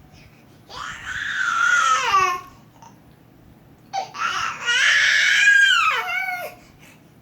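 A baby making two long, high-pitched squealing cries, each sliding down in pitch at the end.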